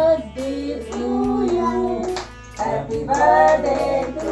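A song with singing voices over music.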